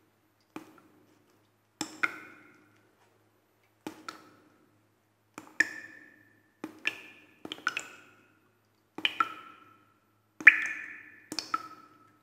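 Water dripping inside the car from a roof leak at the passenger side, caused by a sunroof left not fully closed in heavy rain. Irregular drops fall about one every second or so, often two close together, each a sharp tick with a short ringing ping; the loudest comes about ten seconds in.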